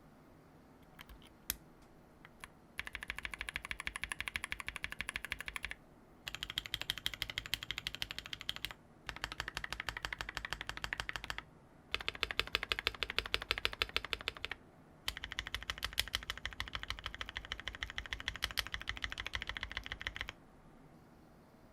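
Fast typing on a brass-plate mechanical keyboard with ePBT keycaps, in five separate bursts of rapid key clacks split by short pauses, each burst with a slightly different tone, like a series of switch sound tests. A few single key clicks come before the first burst.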